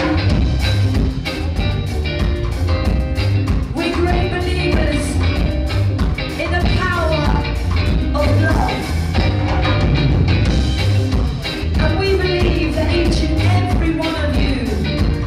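Live band playing: electric guitar, bass guitar and drum kit, with a steady pulsing bass line and drum beat. A woman sings into a microphone, her voice coming in about four seconds in.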